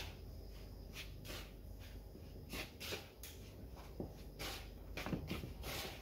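Fingertips rubbing butter into flour in a plastic mixing bowl, the rubbing-in stage of shortcrust pastry: faint, irregular rustling and scraping strokes.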